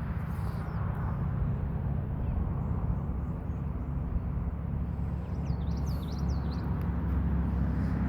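Outdoor ambience: a steady low rumble that grows slightly louder near the end, with a few short bird chirps in the second half.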